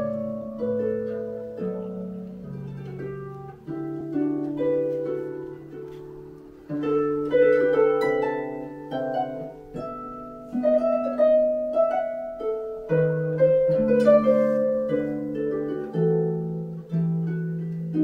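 Concert pedal harp played solo: a steady flow of plucked notes and chords, each ringing on, with low bass notes held under a higher melody.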